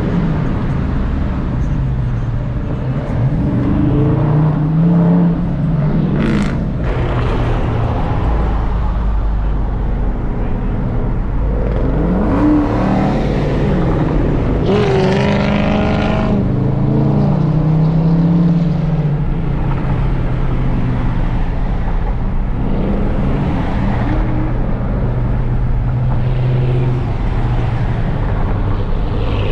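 Dodge Charger Hemi V8 engines on the highway, their note rising and falling several times as they rev up and ease off, over steady road noise.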